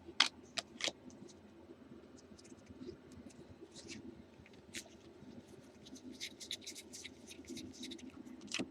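Baseball trading cards handled and slid through by hand: a few sharp taps in the first second, then soft, scattered scratching and clicking of cards against each other.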